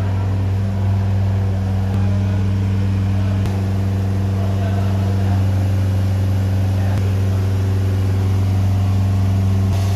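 Diesel engine of a container side-lifter truck running steadily with a low, even hum while it powers the hydraulic lifting arms raising a shipping container onto the trailer. A couple of faint clicks near the middle.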